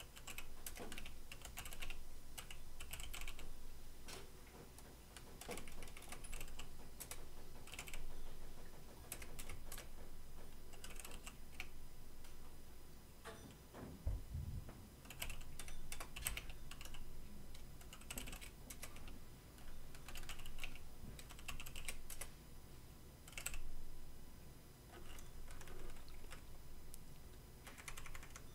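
Computer keyboard typing in short bursts of rapid key clicks with pauses between them.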